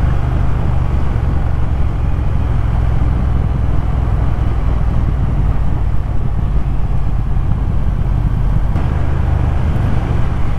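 Triumph Thruxton R's 1200 cc parallel-twin engine running steadily while riding along, with wind and road noise over the bike-mounted camera's microphone.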